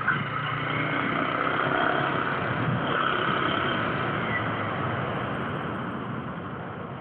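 A Yamaha Sniper 150's single-cylinder engine and wind rush while riding, heard on the rider's mic. The sound slowly gets quieter over the last few seconds as the bike eases off.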